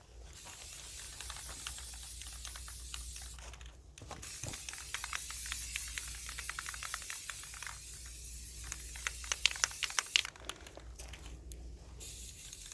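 Aerosol spray paint can sprayed in short passes for a light dusting coat: a long hiss, a brief stop, then a longer hiss with rapid crackling clicks near its end, and spraying again just before the end.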